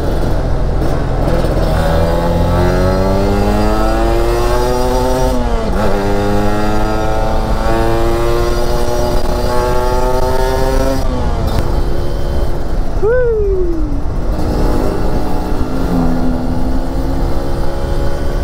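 Sport motorcycle's 150 cc engine accelerating hard through the gears: the pitch climbs, drops at a shift, and climbs again, twice. A brief falling pitch about 13 seconds in is followed by steadier running, all over a constant low wind rumble.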